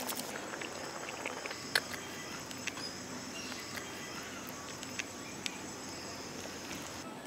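Insects, crickets, chirping steadily in high-pitched chorus, dropping away just before the end, with a few light clicks of a steel ladle against the cooking pot.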